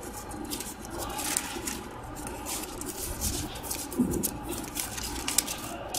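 Spiral-cut paper strip rustling and crinkling as it is handled and rolled in the hands: a run of light, irregular crackles.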